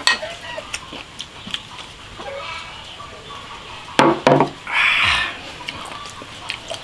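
Eating and drinking at a table: small clicks of chopsticks and crunching, two loud short sounds about four seconds in, then a brief slurp as a bowl of drink is sipped, with chickens clucking nearby.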